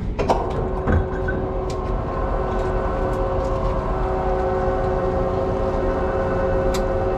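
Ship's anchor windlass starting up and running with a steady whine over a low rumble, with the heavy anchor chain clanking against the gypsy a couple of times in the first second.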